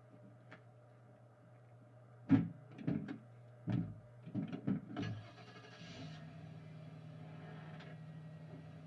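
A sharp bang about two seconds in, followed by a run of irregular knocks over the next few seconds, over a low steady hum. After the knocks a steady hiss comes in and the hum steps up slightly in pitch.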